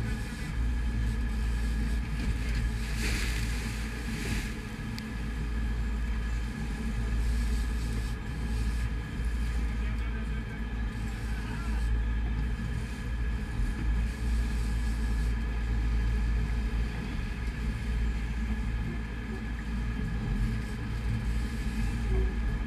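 Sportfishing boat's inboard engines running with a steady low rumble, mixed with wind and rushing sea water. A louder rush of noise about three seconds in.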